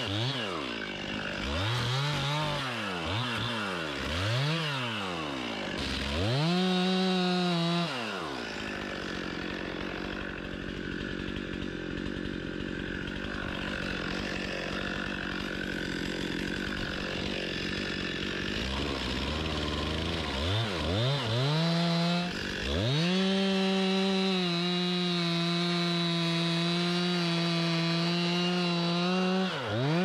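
Stihl chainsaw cutting into the base of a large tree to fell it. The engine revs up and down several times, runs at full throttle, eases off for about ten seconds in the middle, then climbs back and runs steadily at full throttle through the cut.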